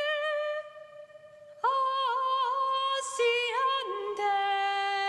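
A lone female voice singing unaccompanied. A held note fades out within the first second, and after a short pause the voice comes back with quick ornamented turns, then settles on a lower held note with vibrato.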